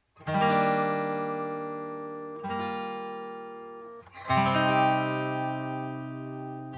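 Background music: acoustic guitar chords strummed and left to ring, three chords about two seconds apart, each slowly fading.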